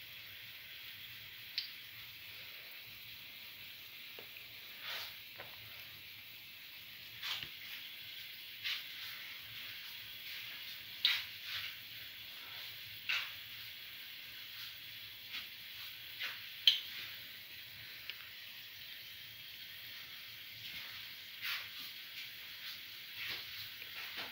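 Garlic chickpea-flour fritters frying in shallow oil in a cavity pan: a steady sizzle, with short pops and clicks every second or two.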